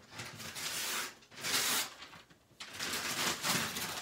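Christmas wrapping paper being torn and crumpled off a gift, in three crackling bursts with a short pause before the last; the loudest comes about a second and a half in.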